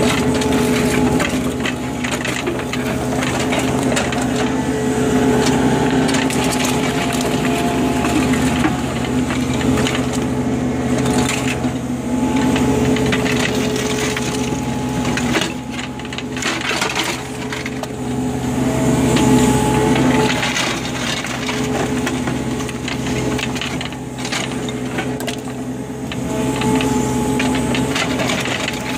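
Digging machine's engine running steadily while its bucket scrapes and crunches through dirt and stones, with irregular knocks and cracks throughout.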